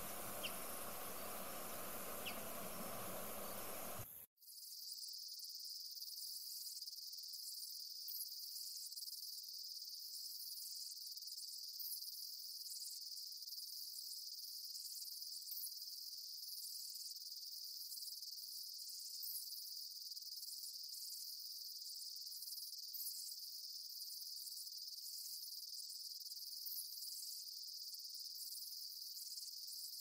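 Insect chorus: a steady high-pitched trill, with faint short chirps every second or two. It begins abruptly about four seconds in, replacing a broad outdoor hiss.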